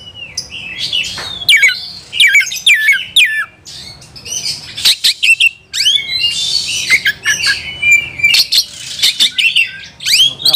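Oriental magpie-robin (kacer) singing loudly in a fast, unbroken run of varied whistles, sharp chirps and down-slurred notes, with a harsher, scratchy stretch about six seconds in. It is the heated, combative song of a male fired up to take on a rival.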